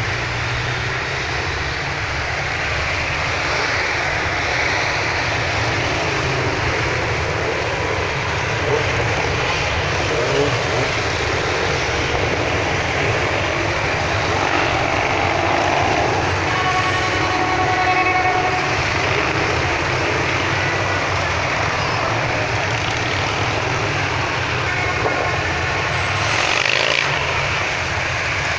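Many motorcycle engines running in a dense, continuous mix as a column of motorcycles rides past. A horn sounds for about two seconds past the middle, and the engines swell louder near the end.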